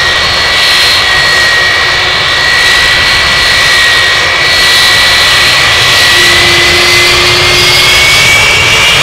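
Boeing 757-200's Rolls-Royce RB211 turbofans at close range while taxiing: a loud, steady jet roar with a high whine. Near the end the whine starts to rise as the engines begin to spool up for take-off.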